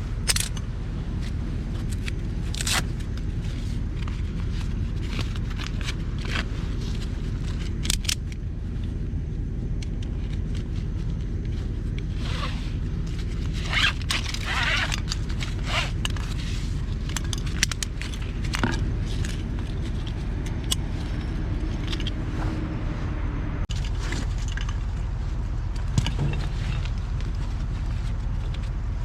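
Kubota BX2230 compact tractor's three-cylinder diesel idling steadily while the front end is held up on the loader bucket. Over it come scattered clicks and scrapes from a ratchet strap being handled and cinched around a front tire, with a busy flurry about halfway through.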